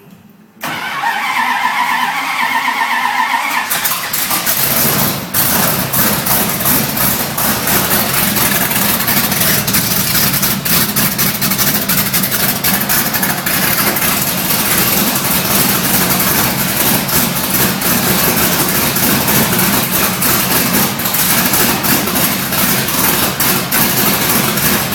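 Starter motor cranking the 1969 Dodge Charger's big-block V8 for about three seconds. The engine catches and then runs steadily on its freshly fitted FAST EFI fuel injection, at its first start.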